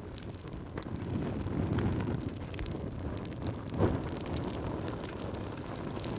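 Wood fire crackling in a fireplace: a steady low rumble of flames with scattered sharp crackles and pops, one louder pop about four seconds in.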